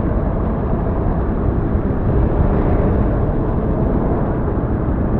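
Loud, steady rumbling noise from a stock sound effect, with no distinct pitch and nothing above the upper mid range.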